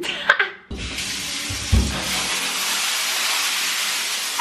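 Shower running: a steady hiss of spraying water that starts about a second in, with a couple of dull low thumps in the first two seconds.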